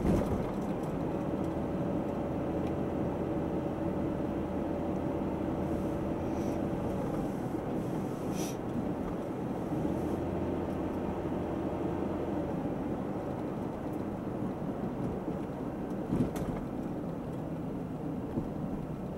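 Car driving along a street, heard from inside the cabin: steady road and tyre noise with a low engine hum that comes and goes, and two short knocks, one at the start and one about sixteen seconds in.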